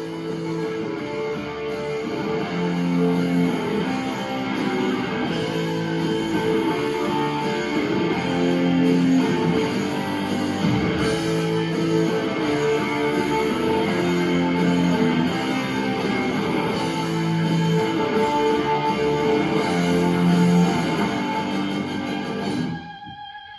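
Instrumental break of a song, led by guitar playing sustained chords, with no singing. The music drops away briefly near the end.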